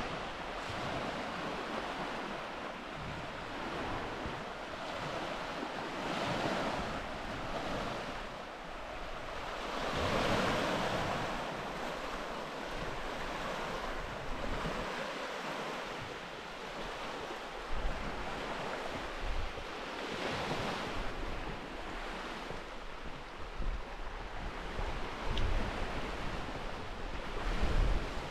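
Small sea waves washing onto a pebble shore, each wash swelling and fading every few seconds. From about halfway through, wind buffets the microphone in low gusts.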